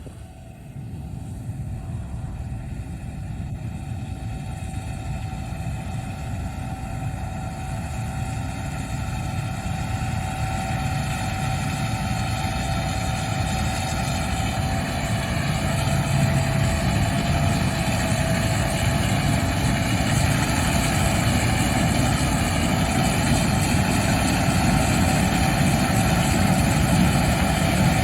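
Gleaner combine running under load while harvesting wheat: a steady engine and machinery drone with a held whine above it, growing gradually louder.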